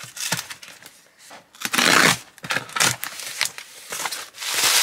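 Packaging and toys being handled during unpacking: a run of rustling, crinkling scrapes with a few light knocks. The loudest scrape comes about two seconds in and another near the end.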